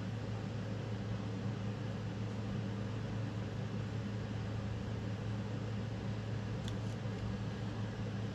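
Steady low hum with an even hiss, with two faint ticks shortly before the end.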